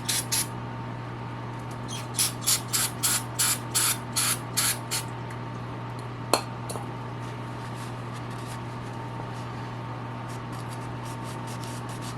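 Aerosol can of parts cleaner sprayed in short squirts: a couple right at the start, then a quick run of about ten, roughly three a second, a couple of seconds in. A single sharp click follows, over a steady low hum.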